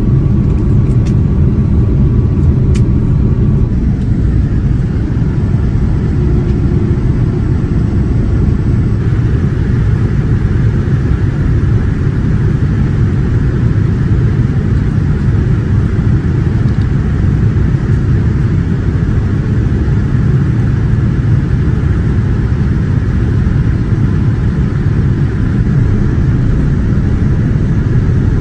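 Steady, loud low rumble of jet engine and airflow noise inside the economy cabin of a Boeing 787-9 airliner.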